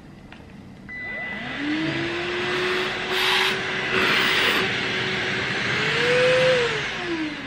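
Queen Maid cordless handheld vacuum cleaner switched on about a second in: its motor spins up to a steady whine with rushing air. It rises in pitch briefly near the end, then is switched off and winds down. This is a test run just after the dust bin was reattached.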